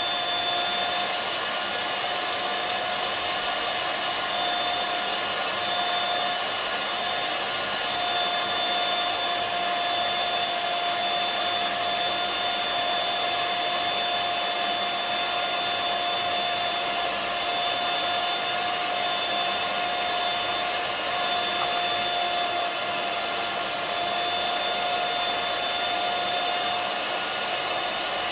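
Small electric hand mixer running steadily on a raised speed setting, its beaters whipping a matcha, sugar and hot-water mix into dalgona foam in a glass. The motor makes an even whine over a whirring hiss.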